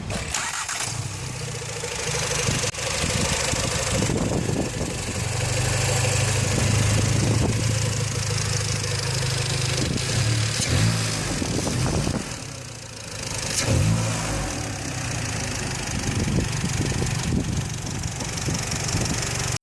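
Škoda Octavia RS's turbocharged four-cylinder engine running at idle, heard close up in the open engine bay, with a couple of short revs about 11 and 13 seconds in.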